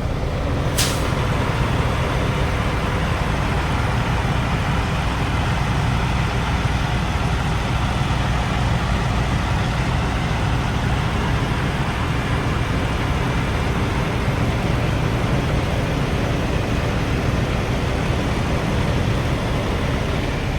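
Steady, heavy storm noise of rain and wind on a parked semi truck, with a deep rumble underneath and a short sharp crack about a second in.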